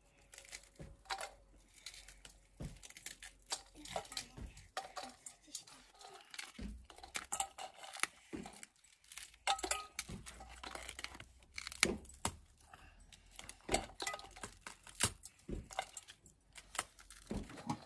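Flatbread being torn by hand into small pieces and dropped into metal bowls: a run of short, irregular crackles and soft taps.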